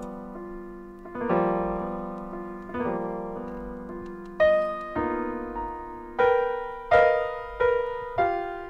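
Jazz piano playing chords, each struck and left to ring and fade, the chords coming more quickly in the second half.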